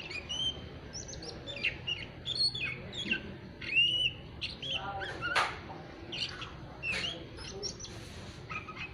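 Oriental magpie-robin (kacer) chattering in its 'ngeriwik' stage, the busy twittering of a young, still-untrained bird: a rapid run of short chirps and down-slurred whistles, with a couple of louder, rougher notes about five and seven seconds in.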